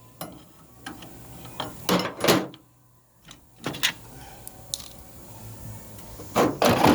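Scattered metal clinks and knocks of hand tools and Turbo 400 transmission parts being handled, loudest a little past two seconds in and in a quick cluster near the end.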